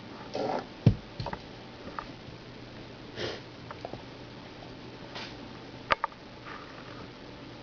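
Kitten playing with a toy: a soft thump a little under a second in, scattered light taps and clicks, and a few short breathy rushes.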